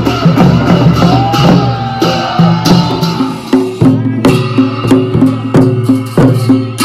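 Himachali folk drumming: large double-headed hand drums beaten together with brass cymbals in a steady beat of about two strikes a second. The sound thins to a clearer, sparser beat about halfway through.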